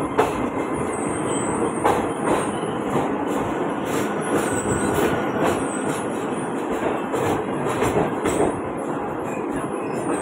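Indian Railways passenger coaches rolling past at close range: a steady rumble of wheels on rail, with irregular sharp clicks and clanks as the wheels cross rail joints.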